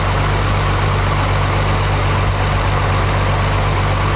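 Turbocharged BMW engine idling steadily and evenly, heard close up in the open engine bay; it is running smoothly ('sweet as a nut') after fresh tuning work such as the valve clearances being reset.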